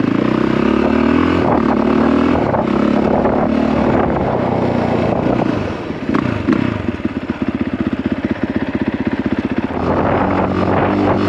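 Honda CRF450R single-cylinder four-stroke dirt bike engine under way, pulling hard on the throttle. About six seconds in the revs fall away and it runs off-throttle with an uneven stutter, then it picks up again near the end.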